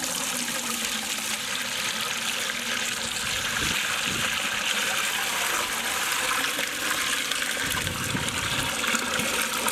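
Water pouring steadily in a continuous gush from a plastic water jug into a large cooking pot.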